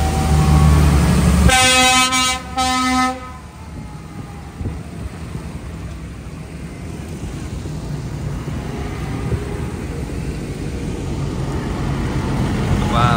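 Tractors driving past on a rain-soaked road: a loud passing engine rumble, then a vehicle horn sounding two blasts, the first short and the second a bit longer. Quieter engine and wet-tyre hiss follow in the rain, growing steadily louder as the next tractor approaches, and a horn starts again right at the end.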